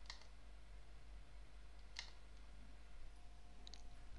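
Faint computer mouse button clicks: one at the start, another about two seconds later, and a quick faint double click near the end, over a low steady hum.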